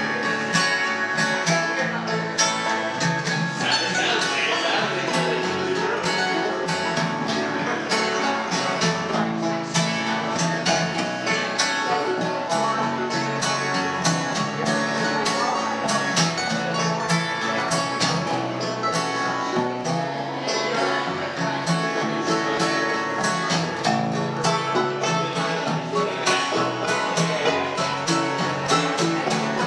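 Banjos and an acoustic guitar picking a bluegrass-style folk tune together, a steady stream of quick plucked notes.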